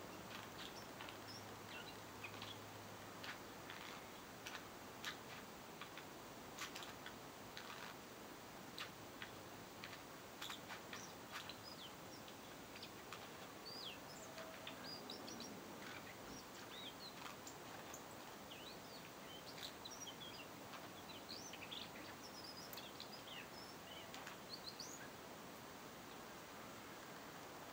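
Male Daurian redstart calling faintly: sharp ticking clicks in the first half, then quick, soft chirps strung together as chattering in the second half.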